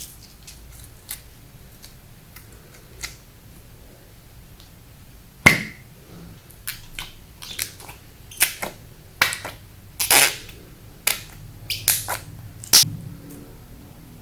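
Slime being squeezed and kneaded by hand, giving a string of sharp squelching pops and clicks as air pockets burst. A few faint clicks come first, and the pops grow frequent about five seconds in.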